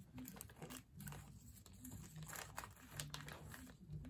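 Faint crinkling and light clicks of nitrile-gloved hands handling small parts on a power steering pump housing.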